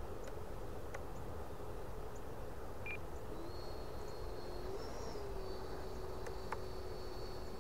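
Distant whine of an E-flite Viper 70mm electric ducted-fan RC jet in flight: a thin steady tone that comes in after about three seconds, rises briefly near the middle and settles again, over a low steady background noise.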